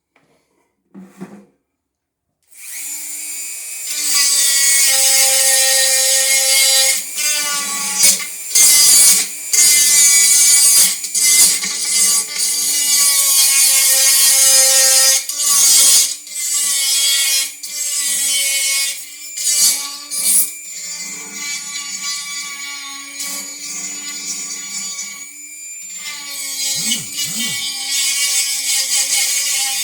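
Dremel rotary tool with a sanding stone bit grinding the plastic of a headlight housing, its high whine starting a couple of seconds in and repeatedly dipping and surging as the bit bites and lifts. The stone is melting the plastic more than sanding it.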